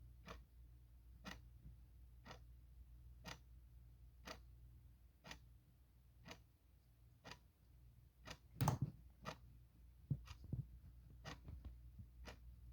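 Clock ticking, one sharp tick about every second. About two-thirds of the way through there is a louder knock, followed by two softer thumps, all over a faint steady low hum.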